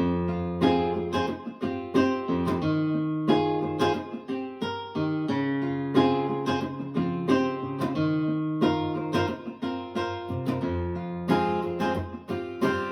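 Music built on plucked and strummed guitar, starting suddenly from silence and running as a steady run of picked notes over held bass notes.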